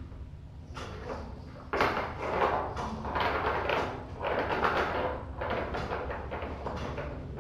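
Kittens scampering and scuffling on a hard floor: an irregular run of scrapes, patters and light knocks that starts suddenly about two seconds in.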